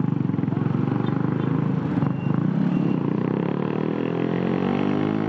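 Suzuki Raider 150's carburetted single-cylinder four-stroke engine, running through an open Apido exhaust pipe with no silencer. It starts low and choppy with distinct firing pulses, then its pitch rises steadily from about three and a half seconds in as the bike accelerates.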